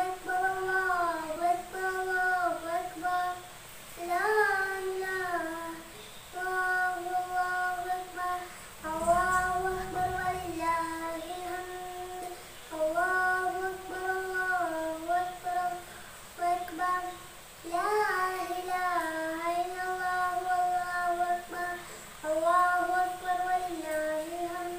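A young boy singing solo and unaccompanied: a melody of held, slightly wavering notes sung in short phrases with brief pauses for breath.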